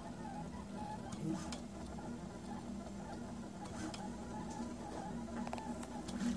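Prusa Mendel RepRap 3D printer running, its stepper motors whining and buzzing in shifting tones as the print head lays down ABS, with a few sharp ticks.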